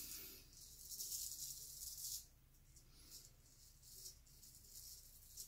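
Gold Monkey straight razor scraping through lathered stubble on the neck on the second pass: a faint rasping stroke lasting about two seconds, then several shorter strokes.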